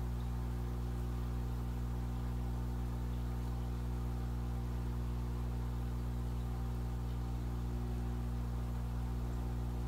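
Aquarium air pump humming steadily, a low hum made of several steady tones, with a faint even hiss from the air stones bubbling.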